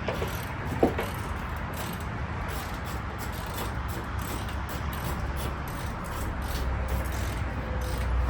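Hand tools working on car body panels: a ratchet clicking now and then over a steady low background hum that grows a little louder near the end.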